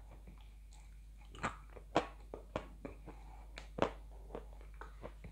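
Someone biting and crunching hard, brittle white chalk-like pieces close to the microphone: a run of crisp, separate crunches between quieter chewing, loudest about two seconds in and again near four seconds.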